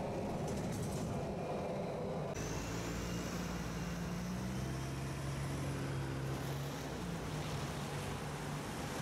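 A low rumble from riding inside a moving vehicle for the first couple of seconds, then, after an abrupt change, street traffic: cars passing on wet asphalt with a steady low engine hum and a faint high whine that rises.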